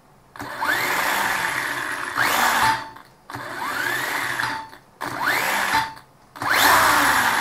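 Brushless motor and four-wheel-drive drivetrain of an MJX Hyper Go 16210 RC car, upside down with its wheels spinning free, blipped on the throttle about five times. Each burst is a whir with a whine rising in pitch, and each cuts off sharply as the throttle is released and the brake is tested.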